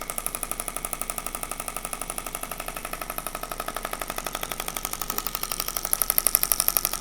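Radial shockwave therapy handpiece firing rapid, evenly spaced clicking pulses against the skin of the lower back. The pulses grow louder in the second half as the machine ramps up from its comfort setting.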